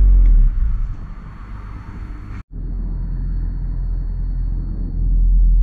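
Nissan Leaf EM57 permanent-magnet drive motor turning slowly under an open-source inverter at about 50 volts, giving a low hum that wavers unevenly in the first half. The motor is still running roughly ('chuggy') on settings that are not yet tuned. The sound cuts out for an instant about halfway through and comes back steadier.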